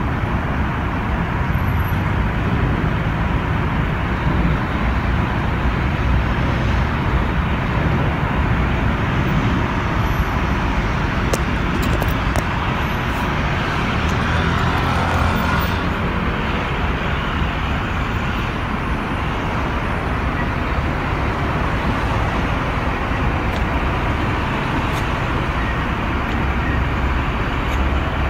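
Road traffic: a steady, continuous rumble of cars passing on the street.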